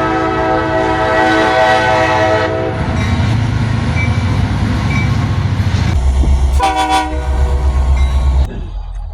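EMD GP40-2 diesel locomotive sounding its horn in a long chord blast, then its turbocharged 16-cylinder engine rumbling heavily as it goes by. A second, short horn blast comes about seven seconds in, and the sound cuts off abruptly near the end.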